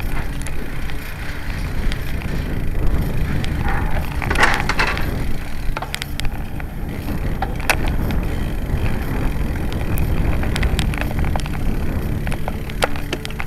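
Road bike rolling over metal grating and brick paving, heard from a bike-mounted camera: a steady low rumble from the tyres and wind on the microphone, with frequent rattling clicks.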